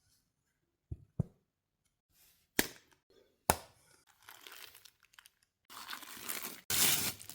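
Knife packaging being opened: two soft knocks and two sharp clicks, then wrapping rustling and crinkling, loudest near the end.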